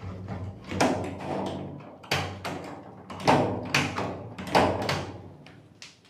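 PVC bathroom door being shut and tried several times, its baby latch lock clacking against the newly fitted strike plate in the frame as the latch is tested. About five sharp clacks, a second or so apart.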